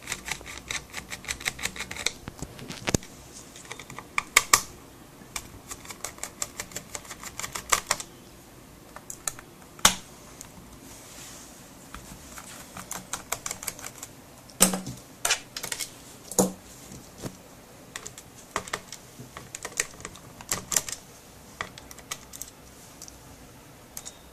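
Screwdriver turning out screws from the plastic base of an HP Pavilion DV6 laptop: runs of rapid small clicks, with a few sharper knocks in between.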